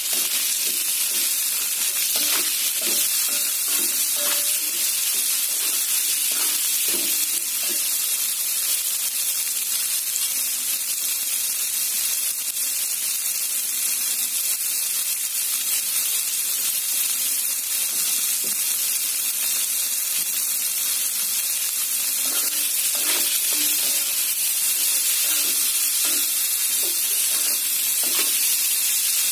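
Clams and tomatoes being stir-fried, a steady sizzle from the pan, with a spatula stirring and now and then knocking and scraping against it, more often near the end.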